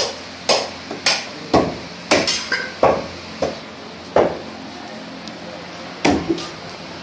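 Butcher's cleavers chopping meat and bone on a wooden log chopping block: sharp, loud chops about every half second, then a pause and one more chop about six seconds in.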